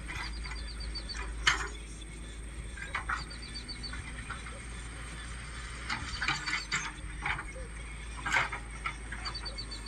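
Hitachi excavator working: a steady low engine hum with scattered sharp knocks and clanks, about half a dozen in all, clustered near the middle and end. Short runs of quick high ticks recur about every three seconds over a steady high whine.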